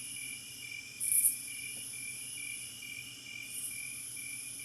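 Crickets chirping on a recorded nature-sound track played through the small built-in speaker of a Lielongren white noise alarm clock. A steady chirp pulses about two to three times a second, with a louder, higher chirp about a second in. The reviewer believes the track loops.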